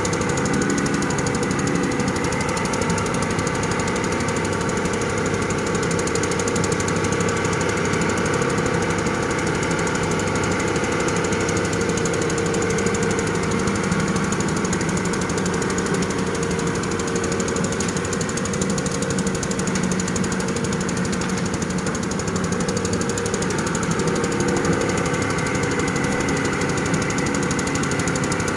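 Heavy diesel engine of an excavator running steadily under load, its tone shifting slightly up and down as it works.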